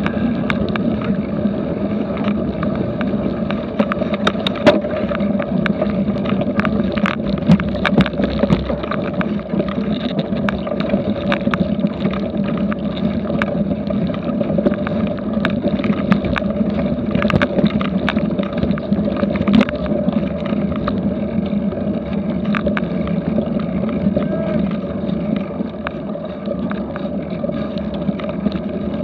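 Cyclocross bike ridden over a rough dirt trail, heard from a camera mounted on the bike: a steady rumble of tyres and frame, with scattered clicks and knocks as the bike jolts over bumps.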